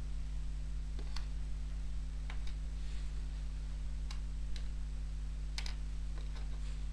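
Small game pieces clicking as they are moved and set down on a wooden paddle game board: a few sharp separate clicks, some in quick pairs. A steady low hum runs underneath.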